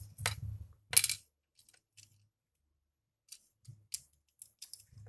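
Small hard electronic parts clicking against a tiled surface: one sharp click about a second in, then several lighter ticks and taps, as old electrolytic capacitors and a small power-supply board are handled and set down.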